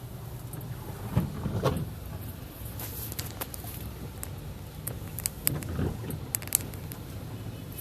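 Car driving through floodwater: a steady low rumble of engine and wheels in water, with scattered sharp ticks and knocks.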